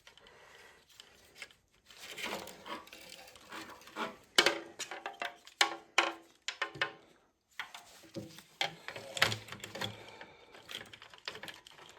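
Irregular clicks, taps and metallic rattles of small metal parts and hand tools being handled, as the car headrest latch mechanism is worked on, with a few sharper snaps about four and a half and six seconds in.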